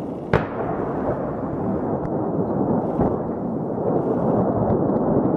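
Large explosion heard from afar: a sharp crack about a third of a second in, then a continuous heavy rumble, with another thud about three seconds in.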